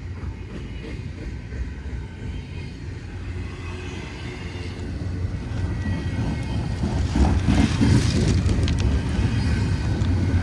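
CSX freight train rolling along the rails: a low, steady rumble of wheels and cars that grows louder over the second half, with a few clicks and rattles.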